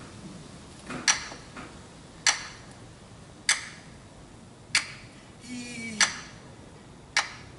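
Slow, evenly spaced ticking: six sharp ticks about 1.2 seconds apart. A short vocal sound falls in pitch just before the fifth tick.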